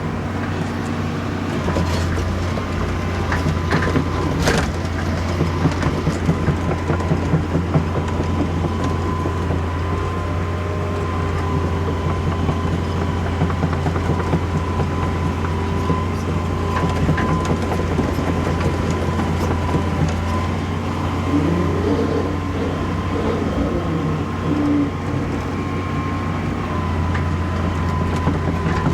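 Excavator's diesel engine running steadily, with a steady high whine over the low drone and a few knocks in the first five seconds as the machine works.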